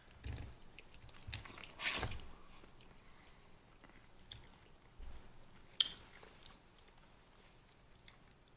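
A person chewing and biting food from a seafood boil close to the microphone, with wet mouth smacks and clicks; the loudest smack comes about two seconds in and a sharp click near six seconds.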